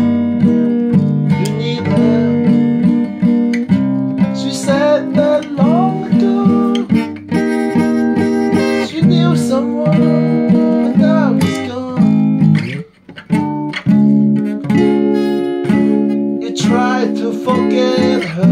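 Acoustic guitar music, chords strummed continuously, with a brief break about two-thirds of the way through.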